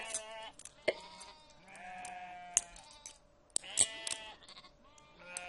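A flock of sheep bleating, several separate calls one after another.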